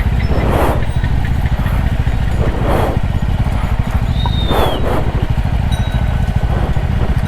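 Motorcycle engine running steadily under way, with brief rushes of wind or road noise. A short high chirp sounds about four seconds in.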